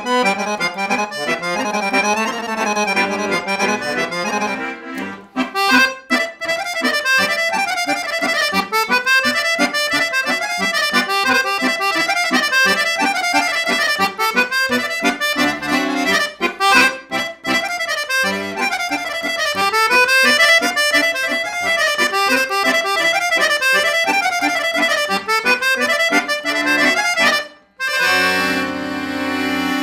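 Dallapé piano accordion played solo: a fast kolo folk dance tune in quick runs of notes over a steady bass. Near the end the playing breaks off for a moment and closes on a long held chord.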